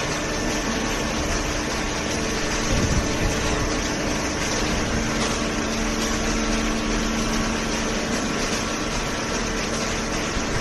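Cardboard baler machinery running with a steady hum and several held tones, one more joining about halfway through.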